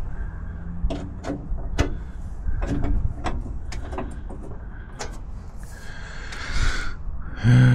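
A string of small, sharp clicks and taps from screws, hardware and hand tools being handled while refitting parts of a Jeep door, with a brief low hum near the end.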